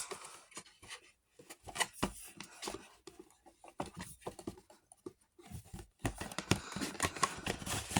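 Packaging and plastic parts being rummaged through and handled by hand: scattered taps, clicks and scrapes with short pauses between, getting busier near the end.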